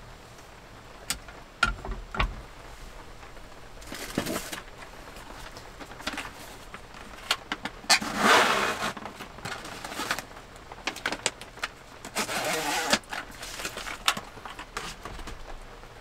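A few light knocks as a kitchen knife is set down on a wooden cutting board. Then the rustle and rip of a sheet of cooking paper being pulled from its box and torn off, loudest about eight seconds in, with a longer rustle of the paper a few seconds later.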